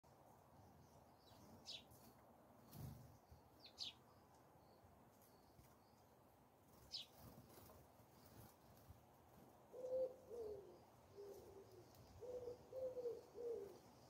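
A few short, high bird chirps, then a dove cooing: a run of low, hollow coos in the second half.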